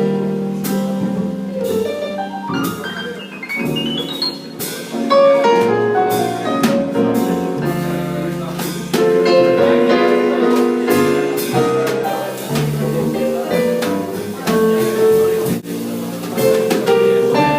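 Instrumental music with drum hits and a rising run of notes about three to four seconds in.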